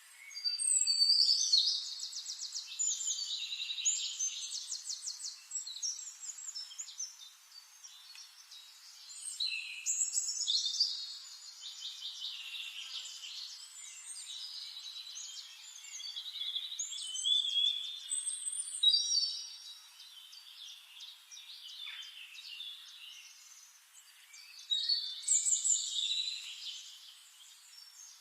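Songbirds singing in bouts of fast twittering trills and chirps, with quieter stretches of scattered calls between the bouts.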